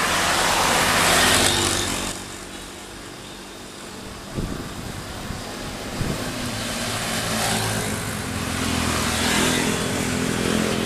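Road vehicle noise from a large bus driving past: engine and tyre noise, loudest in the first two seconds, then dying down, with a second vehicle approaching and growing louder near the end.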